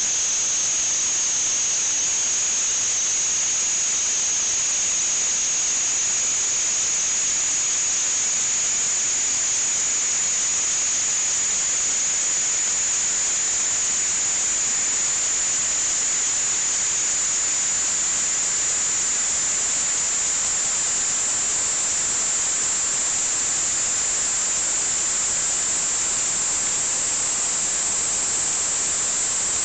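A steady high-pitched whine over a constant hiss, its pitch creeping slowly upward.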